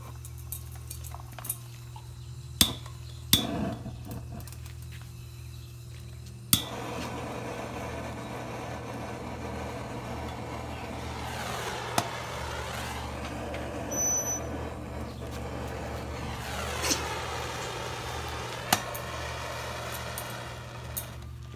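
Metal clinks and knocks of a pan and utensils on a homemade wood-burning stove. From about six seconds in, a steady hiss sets in under the occasional clink.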